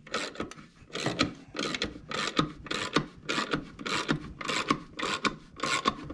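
Repeated rasping, rubbing strokes, about two a second, from parts of a disassembled two-stroke dirt-bike motor being worked back together by hand.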